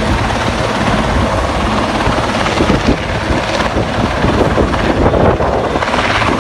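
Loud, steady rotor noise from military helicopters: an Atlas Oryx medium transport helicopter hovering low and a Rooivalk attack helicopter flying overhead, their rotor beat mixed with turbine noise.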